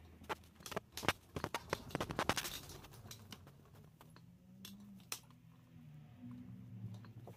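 A run of sharp clicks and scratches over the first three seconds, then a faint low wavering hum.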